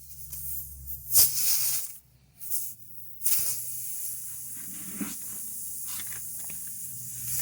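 Air hissing out of a punctured tubeless tire while a reaming tool is worked in the puncture. It comes in a few short, sharp bursts at first, then settles into a steady hiss from about three seconds in. A low hum runs underneath.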